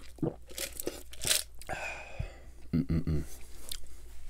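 A food wrapper being crumpled and scrunched in the hands, in several irregular crinkling bursts.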